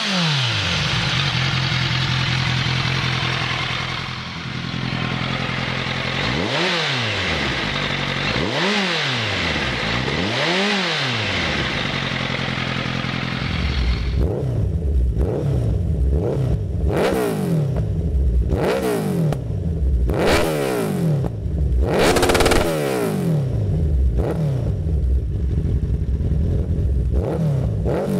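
Kawasaki Z1000 inline-four with a Leo Vince slip-on exhaust idling, blipped three times in quick succession about 6 to 11 seconds in, each rev rising and falling. At about 14 seconds it switches to a Z1000 with a Dominator exhaust, revved over and over in quick blips, with sharp pops on the overrun.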